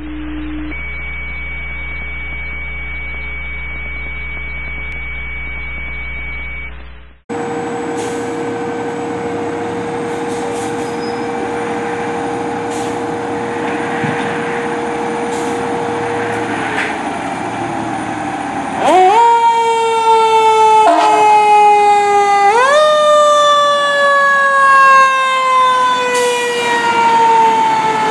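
Fire engine siren wailing: from about two-thirds of the way in it winds up sharply three times and slowly falls in pitch each time, over a steady truck engine. Before that, a steady whine over the engine sinks in pitch. The opening seven seconds are a different, muffled clip: a steady hum with a high steady tone.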